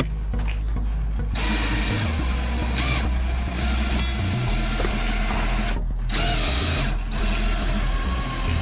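Small electric motor of a powered windshield cut-out winder whining steadily as it pulls the cutting line through the urethane, pausing briefly about three times.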